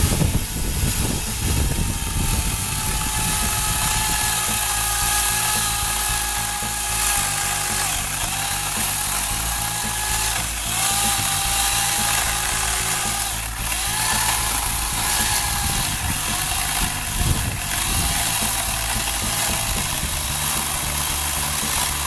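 Chicago Electric 14-inch electric chainsaw with a 1 3/4 horsepower motor, cutting through a 6-to-8-inch log. Its motor whine dips in pitch again and again as it bogs under the load of the cut, then recovers.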